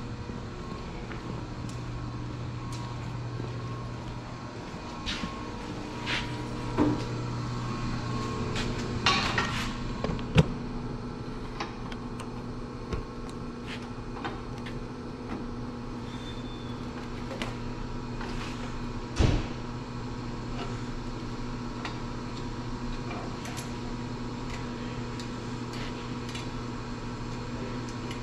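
Workshop sounds: a steady low machine hum with scattered clicks, taps and clanks of metal parts and tools being handled, a small flurry of them about a third of the way through and one heavier knock about two-thirds through.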